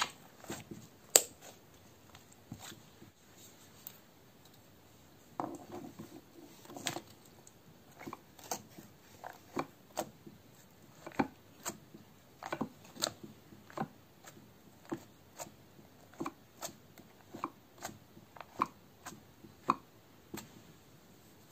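A kitchen knife blade pressed again and again into a slab of green slime, each cut giving a short, sticky crackle, about one or two a second from about five seconds in. Before that come a few squishing clicks as a hand kneads the slime.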